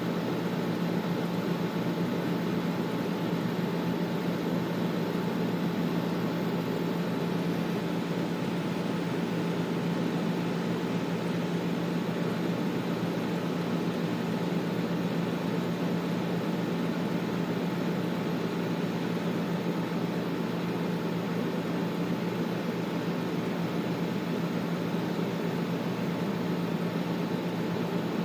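Air conditioner running steadily: an even rush of airflow with a low steady hum from the motor and compressor, unchanging throughout.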